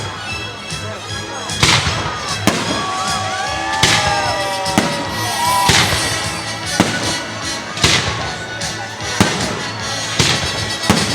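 Festive fireworks salute bursting, about one sharp bang every second, over background music.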